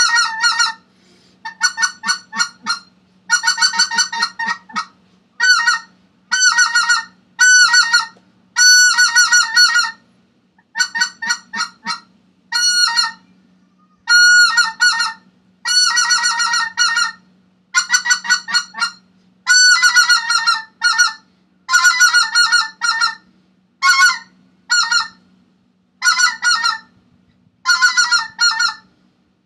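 Greater white-fronted goose (specklebelly) calls: short, high yelping notes run together in quick bursts, one burst roughly every second or two, with a few brief pauses. A faint steady low hum lies underneath.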